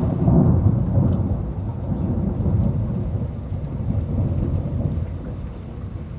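A thunderclap rumbles in the storm. It is loudest about half a second in, then rolls on and slowly fades, while rain patters steadily.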